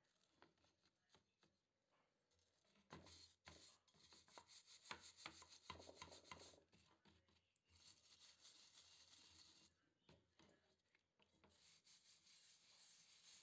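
Faint hand scraping and rubbing on an old hand plane's parts, with a few light clicks at first, then stretches of steady scraping starting about three seconds in.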